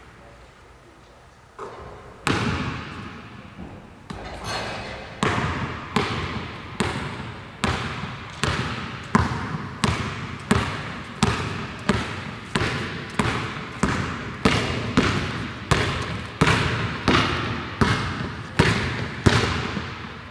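Basketball bouncing on a hardwood gym floor: a few scattered bounces, then steady dribbling at a little over one bounce a second. Each bounce echoes around the large hall.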